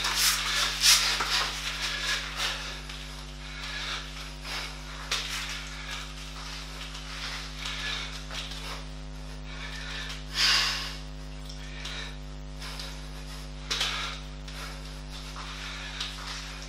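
Steady electrical mains hum, with a man's breathing and small movements on a mat as he holds a plank or push-up position. A sharp, noisy exhale about ten seconds in is the loudest moment, and a few louder knocks come in the first second.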